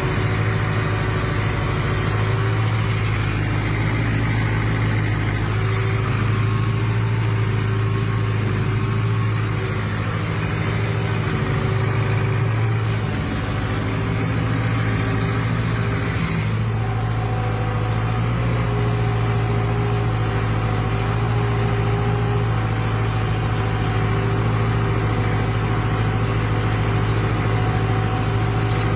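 Fiat 766 DT tractor's diesel engine running steadily under load while pulling a plough, a deep, even hum with little change in pitch.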